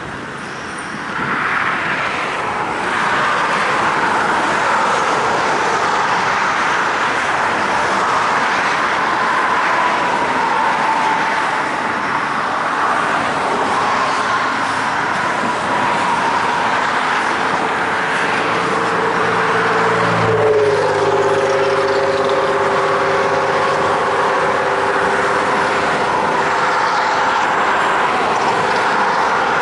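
Empty coal hopper cars rolling steadily past on the rails, mixed with highway traffic noise. About two-thirds of the way through, a steady hum joins in, dipping a little in pitch as it starts.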